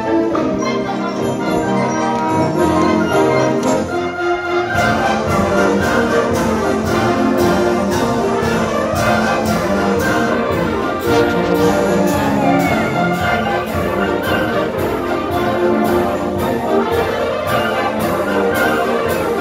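Concert band playing: flutes, clarinets and brass in full ensemble. About five seconds in the low end fills out and a steady percussion beat of about two strokes a second comes in.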